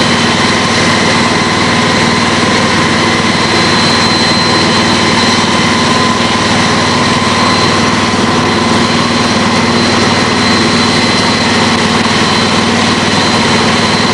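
Flood pumps running steadily to pump water out of flooded basements: a constant, loud mechanical hum with a faint high whine that does not change.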